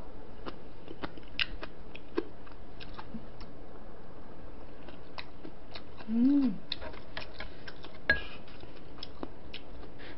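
Close-miked eating sounds: chewing a mouthful of spicy braised seafood, with many small wet mouth clicks and smacks. A short hummed 'mm' comes about six seconds in, and a sharper knock about eight seconds in.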